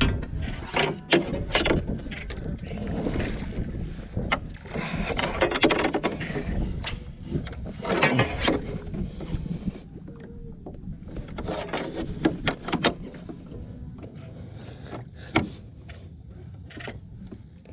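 Irregular knocks, taps and rattles of fishing rods and gear being handled on a small boat's deck, over a low rumble of wind on the microphone; the handling is busiest in the first half and thins out after.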